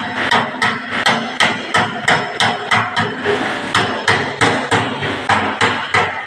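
Rhythmic metal strikes, about three a second, each with a short ring: a dented car body panel being worked with a panel-beating hammer against a dolly held behind it.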